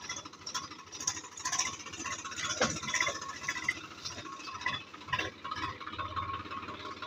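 Swaraj 744 FE tractor's three-cylinder diesel engine running as the tractor drives along, with a steady run of uneven rattles and clanks from the machine.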